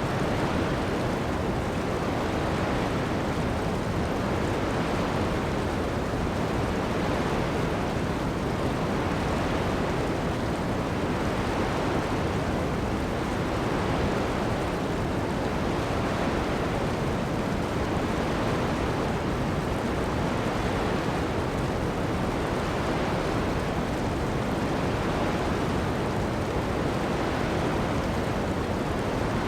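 Ocean surf and heavy rain on a sand beach: a steady, even rush of noise with no breaks or distinct splashes.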